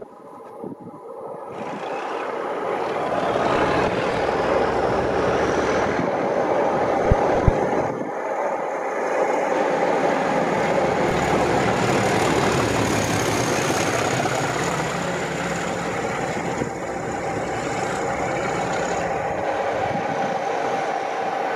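Train passing close by: a steady rushing rumble that builds over the first few seconds and holds, with a thin high whine running through it and two sharp knocks about seven seconds in.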